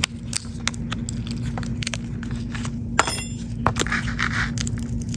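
Small metal repair tools clicking, tapping and scraping on the parts of an opened smartphone, with one sharp metallic click that rings briefly about three seconds in and a short scrape about a second later.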